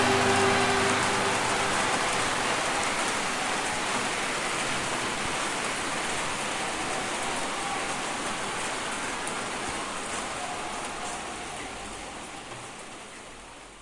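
Steady rain sound effect, an even hiss of falling rain, slowly fading out; the last notes of the band ring off in the first second.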